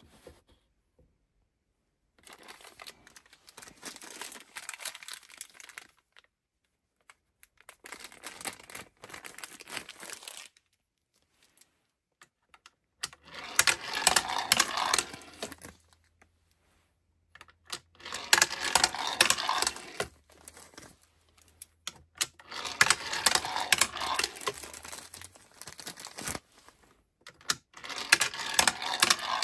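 Small toy cars rolling down a wooden four-deck zigzag ramp toy, rattling along each ramp and clacking as they drop from level to level. Six runs of two to four seconds each, separated by short pauses.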